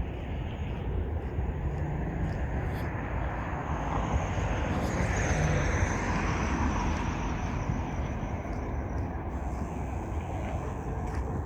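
Engine rumble that swells to a peak about halfway through and then eases off again, as of a machine passing.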